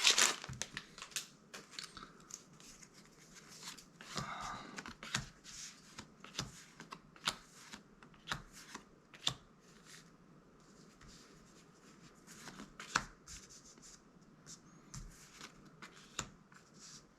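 Magic: The Gathering cards being leafed through one by one by hand: irregular soft clicks and slides of card stock, with a longer brushing slide about four seconds in.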